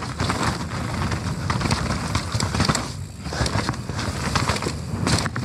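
A Nukeproof Mega full-suspension mountain bike riding down a rough, wet trail: dense, irregular clattering and clicking from the tyres, chain and frame over a steady low rumble.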